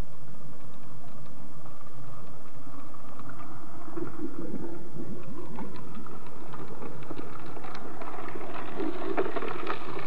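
Underwater suction dredge drawing sand and sediment into its hose: a steady rushing with a dense crackle of grit. It grows louder and busier from about four seconds in.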